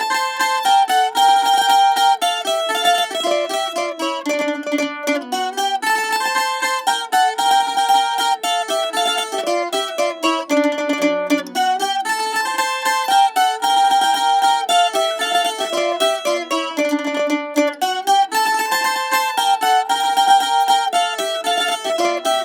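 Pick-played Spanish folk string instruments, the 'púa' section of bandurria and laúd, playing a traditional tune with fast picked notes. The melody's phrase comes round again about every six seconds.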